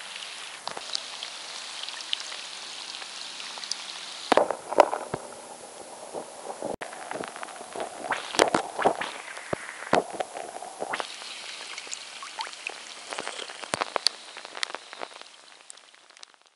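Rain pattering on a river's surface, many small sharp drop ticks over a steady hiss. From about four to eleven seconds in it turns lower and duller, with several loud sharp knocks, then the patter returns and fades near the end.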